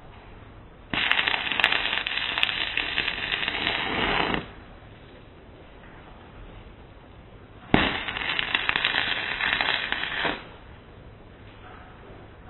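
Stick-welding arc crackling in two runs of about three seconds each, the first starting about a second in and the second near the eight-second mark, each cutting off abruptly: the arc is being struck and broken to lay tack welds on steel bar.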